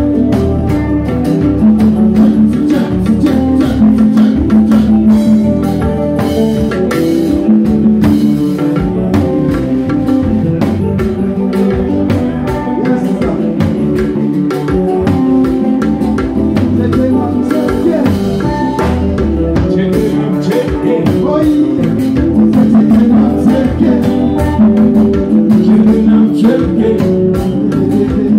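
Live band playing loud, steady dance music: drum kit and congas keeping the beat under guitar and held chords, with some singing.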